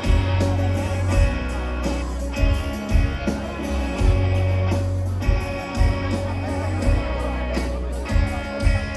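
Live rock band playing: electric guitar over heavy held bass notes, with drums keeping a steady beat.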